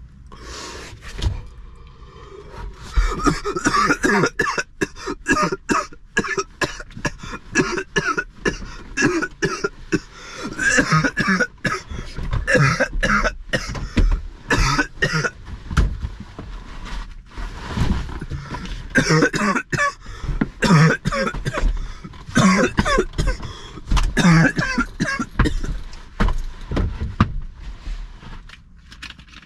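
A man coughing hard and over and over in a long coughing fit after a deep hit from a disposable vape held until it blinks. The coughing starts about a second in and dies down just before the end.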